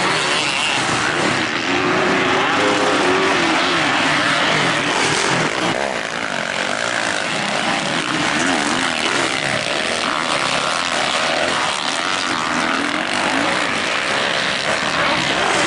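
Several motocross bikes racing on the track, their engines revving up and down as they accelerate and shift, the pitch rising and falling throughout.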